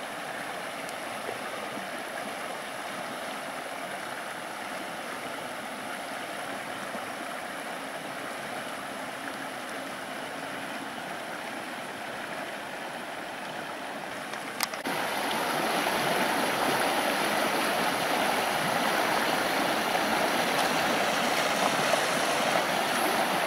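A taiga river running, a steady rush of water. About 15 s in, after a short click, it becomes clearly louder.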